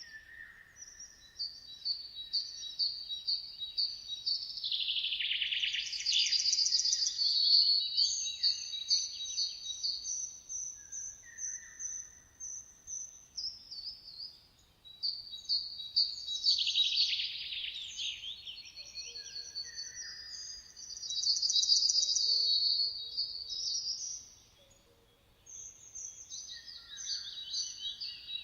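Several songbirds chirping and singing. Their phrases are runs of rapid, high-pitched notes that overlap one another, with a brief lull shortly before the end.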